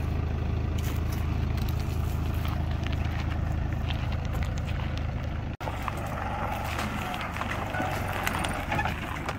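Toyota Hilux camper's engine running at idle with a steady low hum. After a sudden break a little over halfway through, the hum is quieter and footsteps crunch on a dry dirt track.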